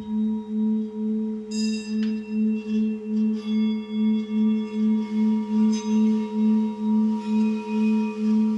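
A steady low ringing tone that throbs about three times a second, with higher ringing tones struck in three times and left to ring on.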